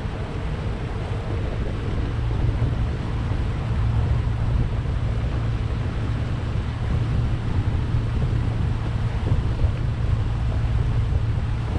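Fishing boat's engine running steadily with a low drone, and wind buffeting the microphone as the boat moves through the water.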